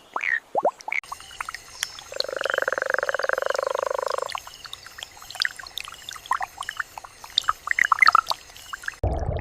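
Indian bullfrog calling: one loud, rapidly pulsed croak about two seconds long, among many short chirps and clicks from other frogs. The call is the breeding males' mating call.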